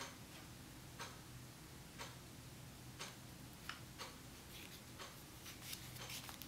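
Faint clock ticking once a second, with a scatter of light clicks in the second half as a gas-blowback airsoft pistol is handled, over a low steady hum.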